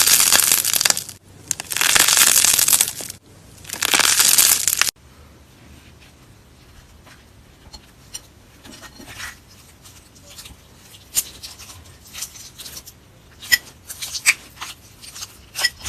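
Slime being squeezed and worked by hand: three loud, noisy squishes in the first five seconds, each a second or more long, then quieter scattered clicks and pops.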